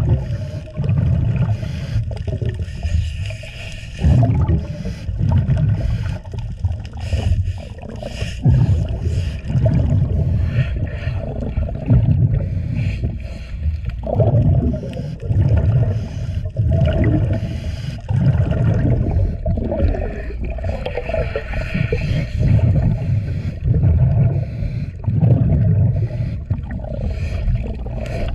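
Underwater sound of a diver scrubbing a boat hull with a scrub pad in repeated strokes, a low rumbling surge every second or two, mixed with the gurgle of the diver's exhaled air bubbles.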